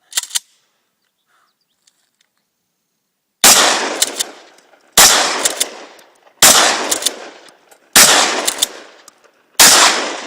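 Mossberg 500 pump-action shotgun with a Roadblocker compensator, fired five times about a second and a half apart, each shot trailing off in echo. Short clacks come just before the first shot and after each shot, as the pump action is worked.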